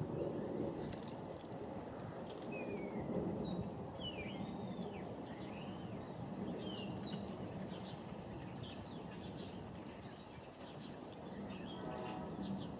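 Small birds chirping and twittering, many short quick calls one after another, over a steady low background rumble.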